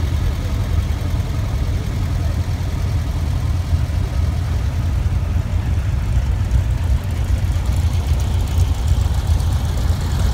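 Air-cooled Volkswagen flat-four engines running at parade pace, a steady low rumble.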